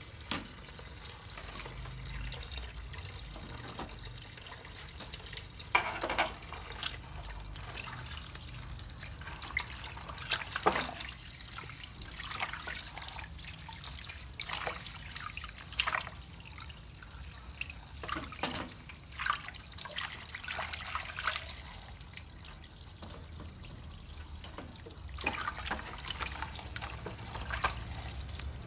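Tap water running and trickling into a stainless steel sink as hands rinse and handle bundles of fresh vegetables, with frequent short splashes and knocks.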